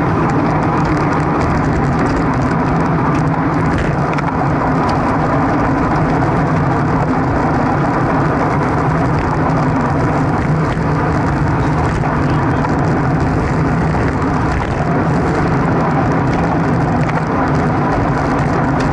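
Steady wind rush buffeting the microphone of a camera on a racing bicycle moving at speed, mixed with the hum of tyres on the road.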